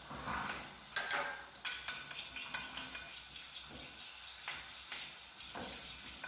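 Scattered clinks and scrapes against a ceramic plate as leftover beaten egg and breadcrumb are gathered up by hand.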